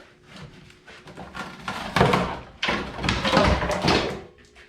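A heater box being knocked and forced apart: a sudden bang about two seconds in, then about two seconds of loud rough clattering and scraping.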